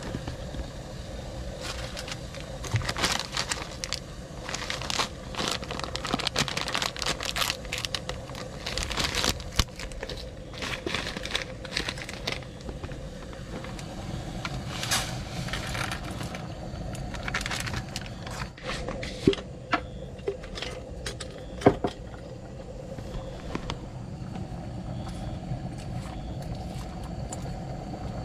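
A plastic pasta packet crinkled and torn open, crackling on and off for several seconds, over the steady rumble of a pot of water at a rolling boil on a portable gas stove. Two sharp knocks come later on.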